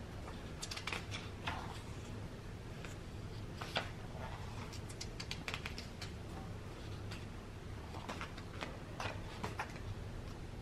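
Pages of a large paperback textbook being turned and smoothed by hand: faint, irregular papery rustles and light ticks.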